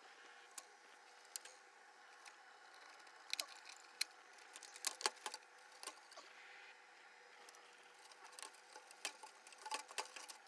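Faint, scattered sharp clicks and light clinks of small plastic and metal projector parts being handled, over a low steady hiss. The clicks are sparse at first and come more often from about three seconds in.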